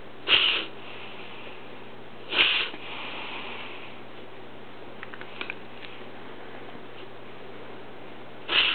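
A dog's reverse sneezing: short, harsh, noisy breaths, two about two seconds apart and a third near the end, each trailing off in a softer hiss. This is the wheezing that the vet diagnosed as a reverse sneeze.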